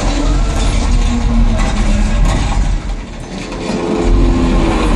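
A TC Sounds 3000 15-inch subwoofer on 4,000 watts playing a deep bass track at high volume, the very low bass dominating. The bass dips for about a second, roughly three seconds in, then swells again.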